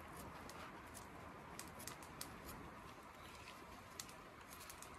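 Faint, irregular small clicks and scrapes of a pocket knife shaving a green maple branch into a cooking stick.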